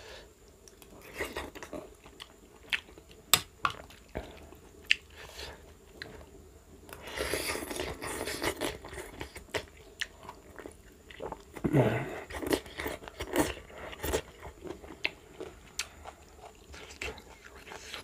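A person eating pasta close to the microphone: chewing and biting, with many short, sharp clicks and a longer noisy stretch about seven seconds in.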